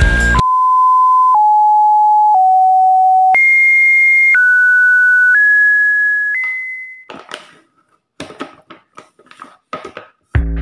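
A sequence of seven steady electronic beep tones, each held about a second and joined without gaps, stepping down in pitch over the first three and then jumping higher for the rest, the last one fading out. Faint scattered clicks and rustles follow, and music starts near the end.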